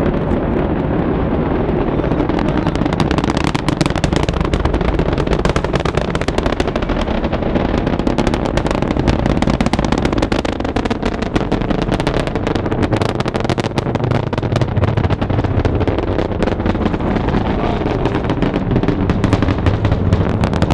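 Space Shuttle Discovery's launch roar reaching spectators miles away: a loud, continuous low rumble with dense crackling, the crackle of the solid rocket boosters, thickening about two seconds in.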